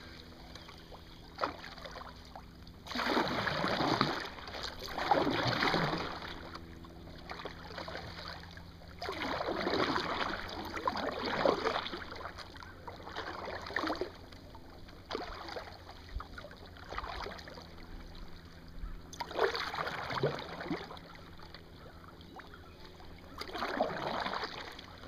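Kayak paddle strokes: the blade swishing and splashing through the water in swells a second or two long, several strokes in a row, with quieter stretches between.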